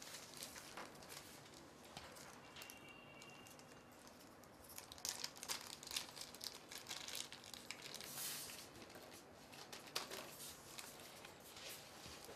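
A small plastic bag of screws being opened and handled: faint, irregular crinkling of the plastic with light clicks, busiest a few seconds in.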